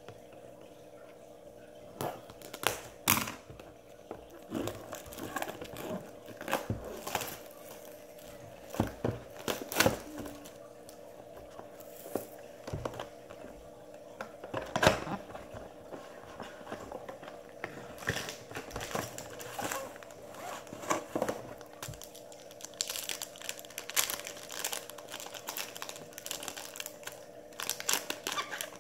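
Trading-card pack wrappers being crinkled and torn open and the cards inside handled, giving irregular crackling and rustling. A faint steady hum runs underneath.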